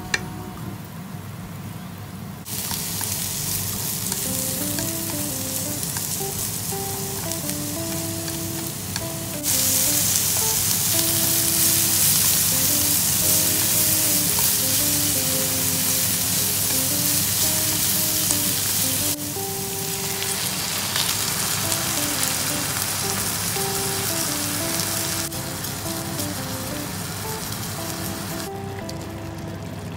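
Food sizzling in a nonstick frying pan: minced garlic and chili frying quietly in olive oil, then onions and sliced wiener sausages stir-fried with chopsticks, the sizzle loudest through the middle and quieter again near the end. Light background music plays throughout.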